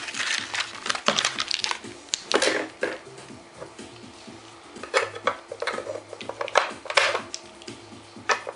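AA batteries being handled and pressed into the battery compartment of an RC radio transmitter: irregular clicks and clinks of the cells against one another, the metal contacts and the plastic case, with a quieter stretch in the middle.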